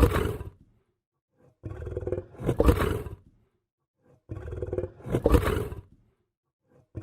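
Lion growling: the same growl repeats about every two and a half seconds with silence between. Each one opens low and rumbling, then swells to a louder peak before dying away.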